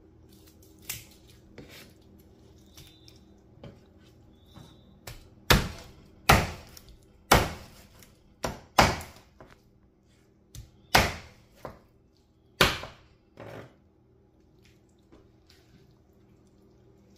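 Kitchen knife chopping through a cooked chicken onto a wooden cutting board. A few light cuts at first, then about ten sharp chops of the blade striking the board over some eight seconds.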